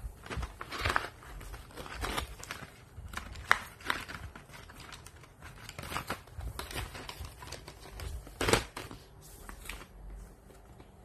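A cardboard box of colored pencils being handled and turned over: scattered rustles, crinkles and light knocks of the packaging, with a sharper knock about eight and a half seconds in.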